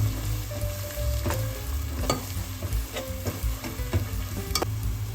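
Onion and ground-paste masala sizzling in hot oil in a pan while it is stirred, with a few sharp clicks of the spoon striking the pan about once a second.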